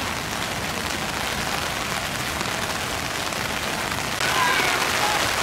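Steady heavy rain, an even hiss. A faint shouted call comes in about four seconds in.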